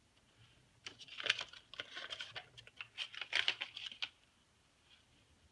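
Paper stickers being handled and pressed onto planner pages. A quick run of small crackles, taps and clicks lasts about three seconds.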